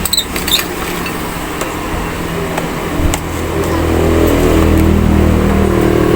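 A few sharp clicks, then a steady engine hum that starts about three seconds in and grows louder.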